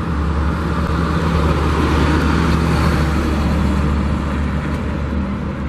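Road traffic noise: a steady rumble of passing vehicles, swelling a little in the middle.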